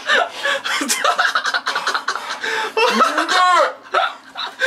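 People laughing and snickering, stifled behind their hands, in a run of breathy bursts. About three seconds in comes one drawn-out vocal cry that rises and then falls in pitch: a reaction to a very bitter bite of food.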